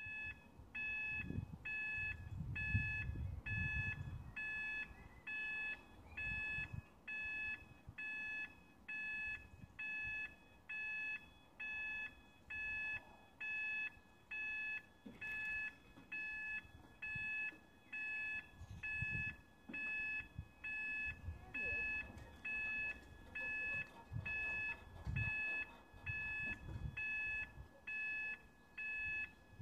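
Level crossing warning alarm beeping steadily, a high beep a little more than once a second: the signal that a train is approaching and the barriers are coming down. Irregular low rumbles sound underneath.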